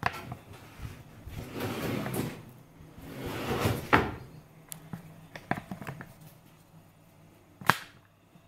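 Drawers of an IKEA Godmorgon sink cabinet sliding on their runners, twice, the second slide ending in a sharp knock as it meets the cabinet. A few lighter clicks follow, then a loud sharp knock near the end.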